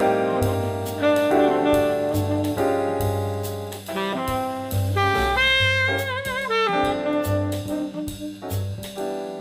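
Background jazz music: a saxophone playing the melody over piano, a walking bass and a drum kit, with one long note bent and wavered about six seconds in.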